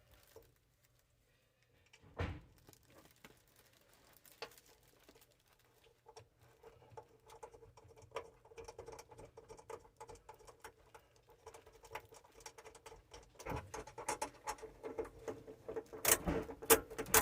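Faint, scattered clicks and small knocks of tools and metal fittings being handled under a sink while faucet supply lines are disconnected from the valves. The clicking gets busier and louder in the last few seconds.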